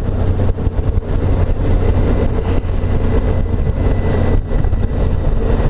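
Suzuki V-Strom's V-twin engine running steadily while the motorcycle rides over a gravel road, with noise from the tyres on loose gravel.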